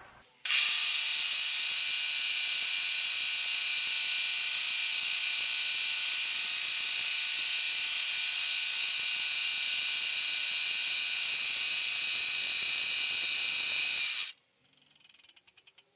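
Milling machine spindle running, spun up for edge finding: a steady high-pitched whine made of several steady tones. It starts abruptly about half a second in and shuts off about two seconds before the end.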